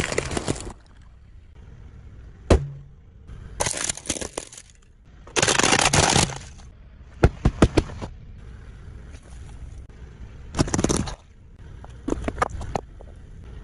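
A car tyre rolling over and crushing objects on asphalt: eggs cracking, a red plastic toy car breaking up, then toothpaste tubes and filled balloons squashing. It comes as a string of separate crunching bursts and sharp cracks, each lasting under a second.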